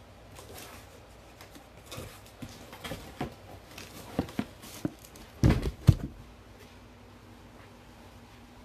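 Cardboard trading-card boxes being handled and set down on a table: a string of light knocks and rustles, with two heavy thumps a little past halfway, then quiet handling noise.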